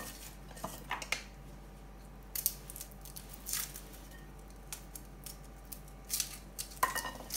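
Dry, papery garlic skins crackling and rustling as cloves are peeled by hand, with a small knife picking at them. The crackles come in short, scattered bursts.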